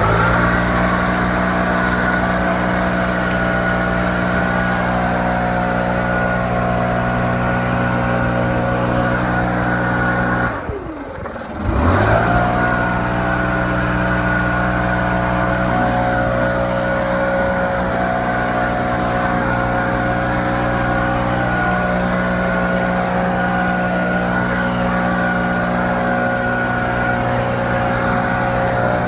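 STIHL BR700 backpack leaf blower's two-stroke engine running steadily at full throttle. About ten seconds in, the throttle is briefly let off: the pitch falls and the sound drops, then it revs back up to full speed.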